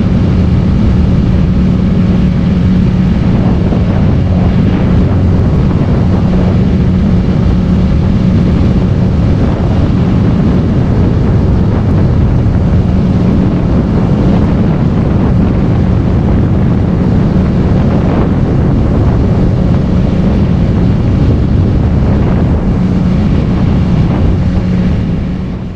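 Small outboard motor on an aluminium skiff running steadily at speed, with wind buffeting the microphone. The sound drops away at the very end.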